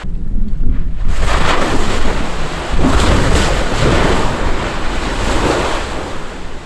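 Mount Etna erupting: a deep, continuous rumbling roar with hissing swells that rise and fall, setting in sharply at the start and growing fuller about a second in, mixed with wind buffeting the microphone.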